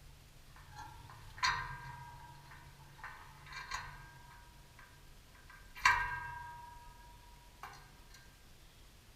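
Sharp metallic knocks at irregular intervals, five in about seven seconds, each ringing on briefly with a clear tone before dying away; the loudest comes about six seconds in.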